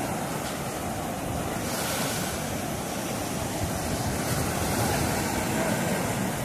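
Choppy sea surf breaking and washing over low shore rocks: a steady rush of churning water and foam.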